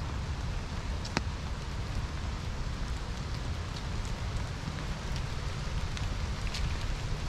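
Steady outdoor hiss over an uneven low rumble, with scattered small ticks, the sharpest about a second in.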